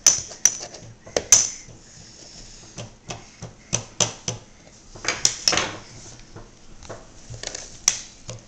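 A table knife chopping lettuce on a plastic cutting board and scraping against a plate: irregular sharp taps and clicks, with a few short scrapes.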